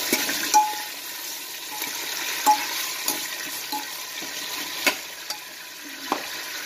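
Mutton pieces sizzling in hot mustard oil in a pressure cooker, stirred with a steel spoon that clinks against the pot four times.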